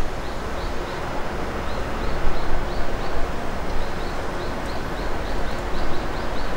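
Wind rumbling and hissing on the microphone, with a run of short high chirps, about three a second, from a small bird.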